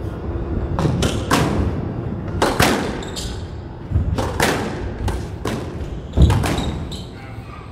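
Squash ball being struck by rackets and hitting the court walls during a rally: a run of sharp knocks at an uneven pace, the loudest about six seconds in.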